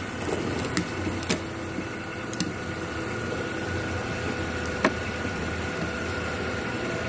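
Mercedes-Benz S350 petrol engine idling steadily under the open hood, with a faint steady high tone over its hum. A few sharp clicks in the first five seconds as a plug-in performance module's connector is handled.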